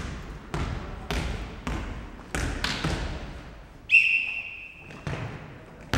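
Futnet ball bouncing on a wooden sports-hall floor about twice a second, each bounce echoing. About four seconds in, a referee's whistle sounds one steady blast lasting about a second.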